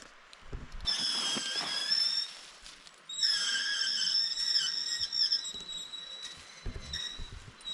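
Night insects trilling in high, steady, slightly wavering tones, with a few low thumps near the start and near the end.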